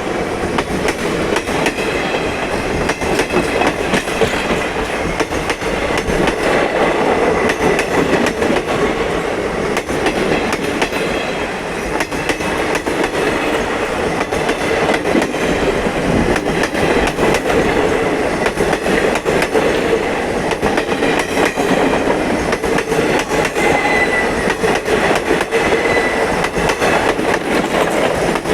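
Indian Railways passenger train running steadily, a continuous rumble with the rapid clickety-clack of wheels over rail joints. A faint high wheel squeal comes and goes near the end.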